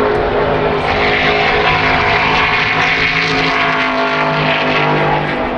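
IndyCar racing engine at high, steady revs, its pitch shifting slightly about four seconds in; it cuts off near the end.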